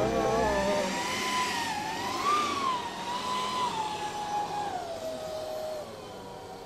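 Electric ducted fans of a model A-10 jet flying past, a high whine that wavers up and down and then slowly falls in pitch and fades as the plane draws away.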